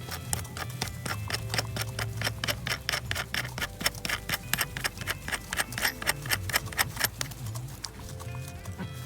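Ratchet wrench clicking in a fast, even run as a lock nut is run down onto a carriage bolt holding a coop wheel, stopping about eight seconds in, over a low hum.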